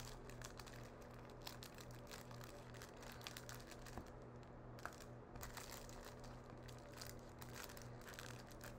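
Aluminium foil crinkling faintly in the hands as its corners are pinched and folded into a small boat: a run of soft, irregular crackles over a steady low hum.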